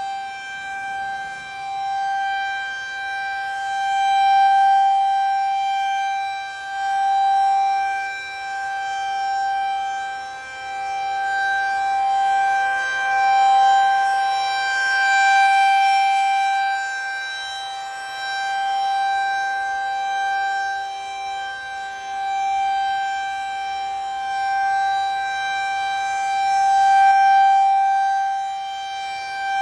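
Federal Signal 2001-SRN rotating electromechanical siren sounding a steady alert tone at full speed, already wound up. The pitch holds steady while the level swells and fades every few seconds as the rotating horn sweeps past.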